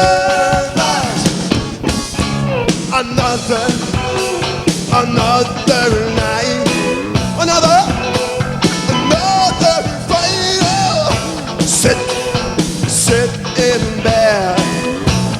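Live rock band playing an instrumental passage between verses, with drums, bass, electric guitar and violin; a lead line slides and bends in pitch over a steady beat.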